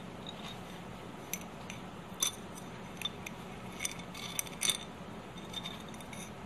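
Small glass beaker with an iron nail in it being picked up and tilted: a few faint, light clinks and taps of glass and metal, scattered over several seconds.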